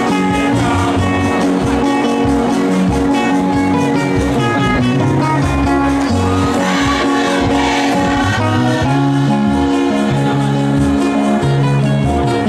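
Church choir singing with a band of electric guitars, bass guitar and hand drums playing along.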